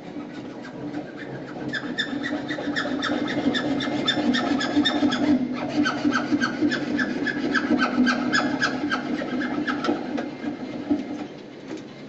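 Rapid rhythmic rasping strokes, several a second, on the orange PVC sanitary pipe being worked overhead. They build up about two seconds in and ease off near the end.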